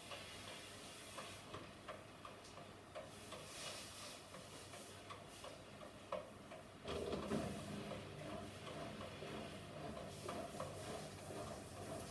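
Electrolux washing machine on its spin cycle: faint light clicks and ticks over a low hum as the drum turns, then about seven seconds in the motor steps up to a louder steady hum as the spin speeds up.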